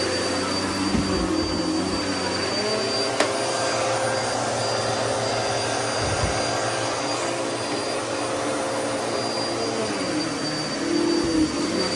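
Upright vacuum cleaner running steadily as it is pushed over carpet, its motor tone shifting slightly with the strokes. A single sharp click comes about three seconds in.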